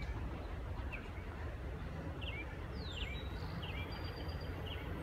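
Small birds chirping: a scattering of short, high chirps, some dropping in pitch, over a steady low rumble.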